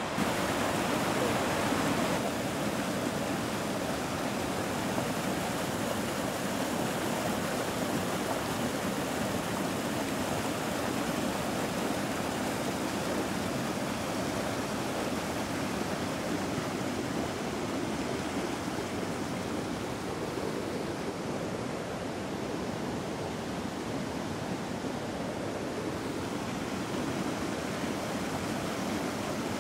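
Swollen river in flood, its fast muddy water rushing steadily.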